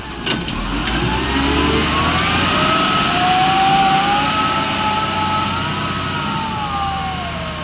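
Excavator engine and hydraulics working under load: a steady low rumble with a whine that rises in pitch over the first few seconds, holds, then slowly falls near the end.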